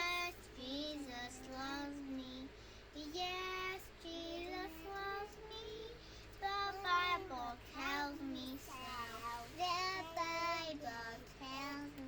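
A child singing a melody, holding notes and sliding between them, with no instrument heard.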